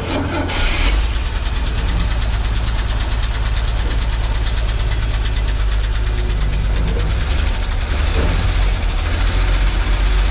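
The engine of a 1976 Jeep Cherokee with throttle-body injection is started: a short burst of cranking, then it catches about a second in and keeps running with a steady beat. It runs roughly and not cleanly.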